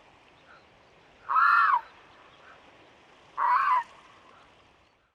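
Pelican calling twice: two short calls of about half a second each, slightly arched in pitch and about two seconds apart, over a faint steady hiss.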